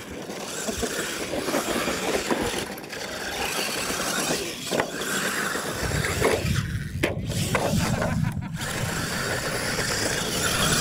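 Radio-controlled monster truck driving over dirt, its motors whining and rising and falling as it speeds up and slows. A low rumble joins in about six seconds in.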